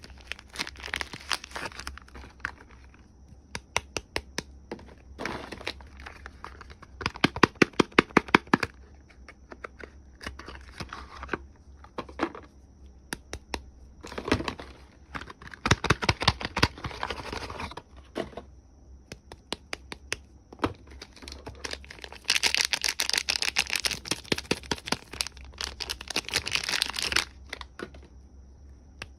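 Soap packaging being unwrapped by hand: wrappers crinkling and tearing, with runs of rapid sharp clicks and a longer spell of continuous rustling near the end.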